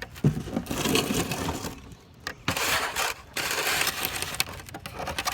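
Packing material being handled on a freshly unboxed e-scooter: three long stretches of crunching and rustling with a few sharp clicks.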